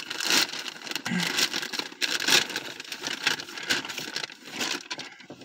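Irregular rustling and scraping as a bag and the packaged items in it are handled and pulled about.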